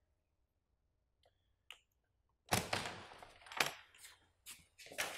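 Heavy metal door being unlatched and opened: two faint clicks, then about two and a half seconds in a loud clank with a scraping rush, followed by several sharp metallic clanks.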